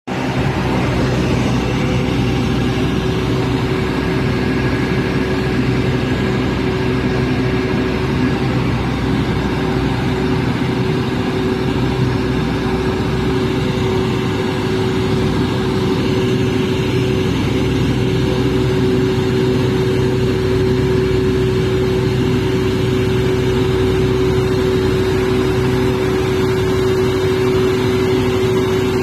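Cummins diesel generator set running steadily at constant speed: an even engine drone with a clear, steady tone over it, never changing in pitch or loudness.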